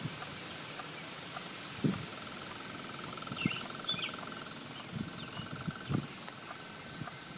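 Electrical ticking from the battery area of a 2006 Ducati 999 with the ignition on: a fast faint buzz under regular sharp clicks about twice a second. The bike won't turn over and its dash lights are flashing, and the cause is unknown. Birds chirp a few times in the middle.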